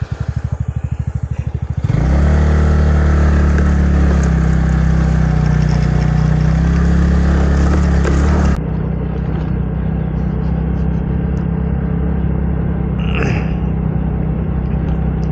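A motor vehicle engine idles with a pulsing beat, then revs up about two seconds in and runs steadily. The sound changes abruptly about eight seconds in, with the engine still running.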